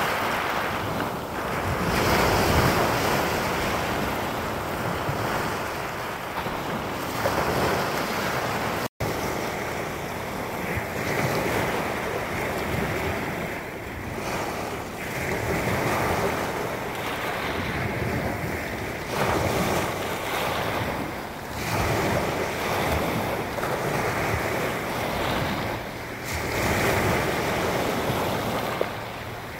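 Small Baltic Sea waves breaking and washing over a pebble shore around the posts of a wooden groyne, swelling and ebbing every few seconds. There is a momentary break in the sound about nine seconds in.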